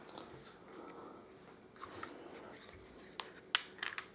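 Handling noise: a few short, sharp light clicks and taps of small hard objects being picked up and set down, bunched together about three seconds in.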